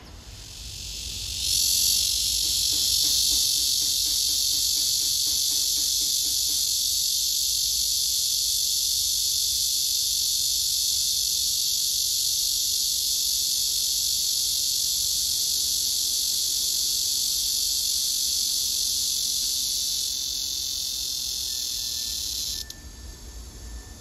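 A male cicada calling for a mate with one loud, continuous, high-pitched buzz. The buzz builds over the first second or so, holds steady, eases slightly about 20 seconds in, and stops abruptly near the end.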